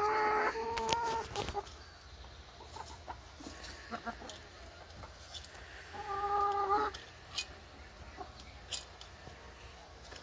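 Hens clucking: drawn-out calls in the first second and a half and another about six seconds in, with a few short, sharp clicks in between.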